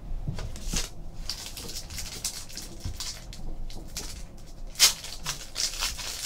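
Foil trading-card pack wrapper crinkling and tearing as it is handled and pulled open, a run of scattered crackles with one sharper crackle near the end.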